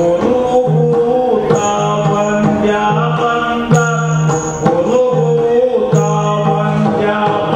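Yakshagana accompaniment: the Bhagavata singing, with a maddale barrel drum and small hand cymbals (tala) keeping a steady rhythm.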